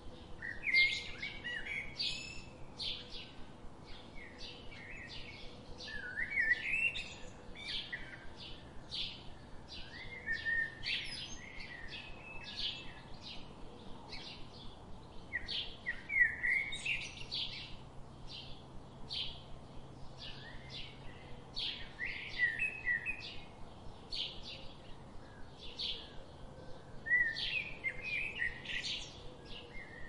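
Songbirds chirping and twittering: quick high chirps several times a second, broken every few seconds by short rising song phrases.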